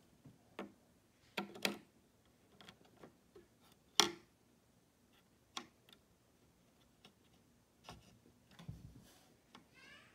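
Scattered light clicks and taps of small computer parts being handled, with one sharper click about four seconds in.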